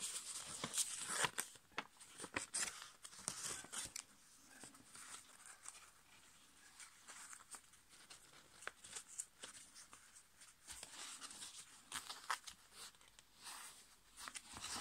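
A sheet of copy paper rustling and crinkling as it is folded and creased by hand, in irregular bursts of small crackles. The handling is busiest in the first few seconds and again in the second half, with a quieter stretch between.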